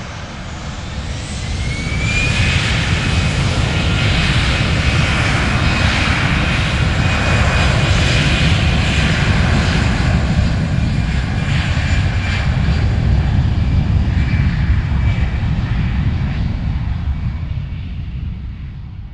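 Airplane engine running with a heavy low rumble. A whine rises in pitch over the first couple of seconds, then holds steady as the sound swells, and the sound fades away near the end.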